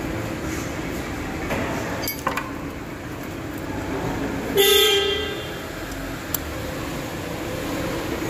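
A short vehicle horn toot about halfway through, the loudest sound, over a steady background hum. A few light metallic clinks from hand tools come before it.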